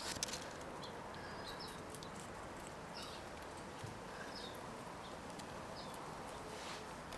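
A fox squirrel gnawing kernels off a corn cob, a few faint crunches and clicks, mostly at the start. Short high chirps sound now and then in the background.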